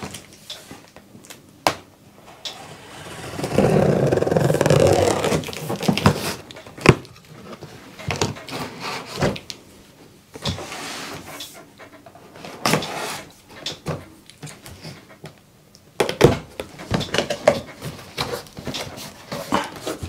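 A large cardboard box being opened and handled by hand: cardboard and packing tape scraping and rustling, with a longer rasp a few seconds in. Many sharp taps and knocks come as the box is shifted about, and a busier run of knocks near the end as it is stood on its end on the wooden table.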